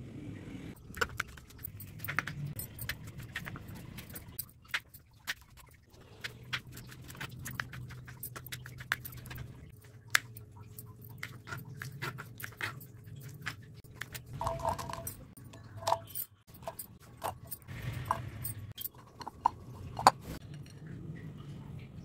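A knife cutting beetroot and other vegetables on a plastic cutting board, heard as many sharp, irregular taps and clicks, with metal bangles on the wrist jingling.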